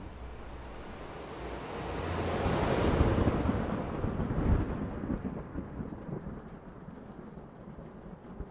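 A long roll of thunder that builds for about two seconds, peaks around the middle and slowly dies away, over a steady background hiss.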